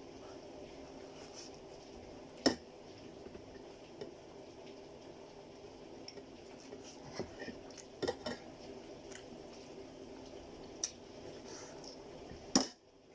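Cutlery clinking against a plate during a meal, a few sharp taps scattered through, over a steady low hum that stops shortly before the end.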